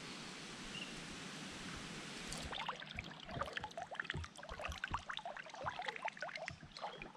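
A steady hiss for the first couple of seconds, then shallow creek water sloshing and splashing in small irregular swishes and drips as someone wades through it.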